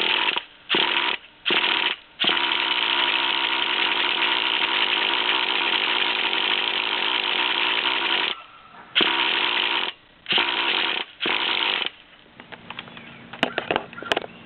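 T-Maxx RC truck drivetrain giving a harsh mechanical whir in on-off bursts, with one long run of about six seconds in the middle and a few clicks near the end. The funny noise is taken for something binding between the spur gear and the engine or transmission.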